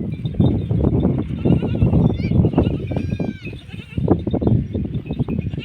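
A flock of sheep bleating over a dense, continuous patter of short knocks and shuffles.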